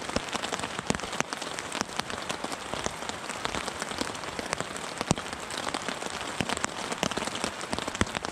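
Steady rain falling on a tarp overhead: an even hiss with many separate drops ticking on the fabric.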